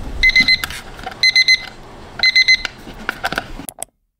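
Digital bedside alarm clock beeping at 6 am, in bursts of rapid high beeps about once a second, three times. The beeping then stops, followed by a few light clicks.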